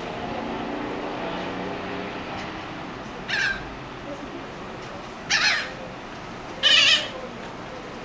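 Gulls calling from a flock in flight: three short calls about a second and a half to two seconds apart, each louder than the one before.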